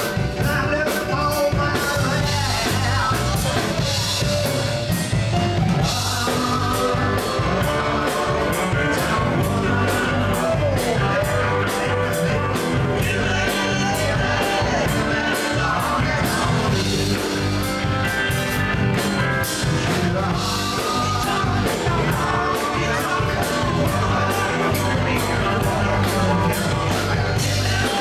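Live rock and roll band playing: a woman singing lead over electric guitar and a drum kit keeping a steady beat.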